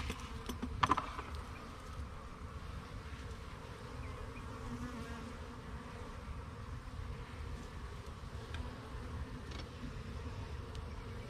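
A honeybee colony buzzing steadily while its comb is being worked, with a couple of short knocks about a second in.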